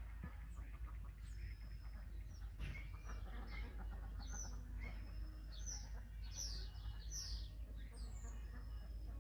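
Small songbirds chirping and singing in quick, overlapping high calls, busiest in the second half, over a steady low rumble.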